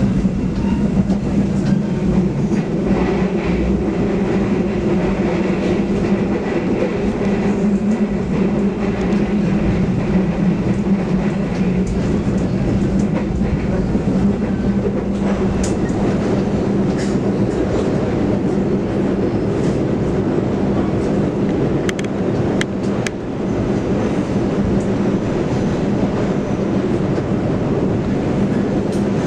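Stainless-steel passenger train running along the track, heard from inside the carriage: a steady rumble and hum of wheels on rail, with a few sharp clicks a little after twenty seconds.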